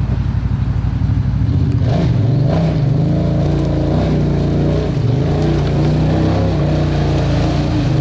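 Kawasaki Teryx UTV's V-twin engine revving under load as the machine churns through a deep mud hole. The engine note rises about two seconds in, wavers, and dips briefly around five seconds.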